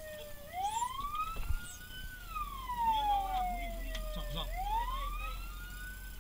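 Fire truck's wailing siren, heard from inside the cab, its pitch sweeping slowly up and down about once every four seconds.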